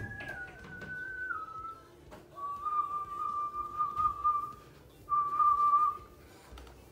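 A person whistling a slow tune of long held notes: a few notes stepping down in the first couple of seconds, then two long steady notes. A knock sounds right at the start.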